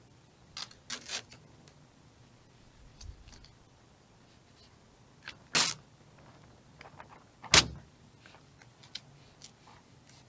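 Vvivid vinyl wrap film being worked onto a car hood with a squeegee: the sheet is lifted and pressed back down in a few short scrapes and crackles. The two loudest come about five and a half and seven and a half seconds in.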